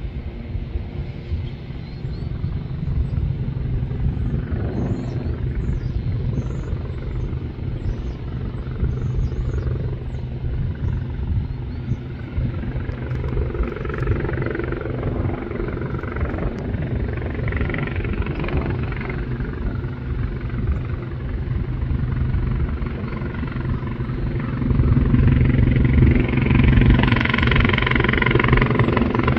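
Twin-turbine Sikorsky S-76C+ air-ambulance helicopter approaching to land, its rotor and engine noise a steady drone that grows louder as it nears, stepping up clearly about twenty-five seconds in.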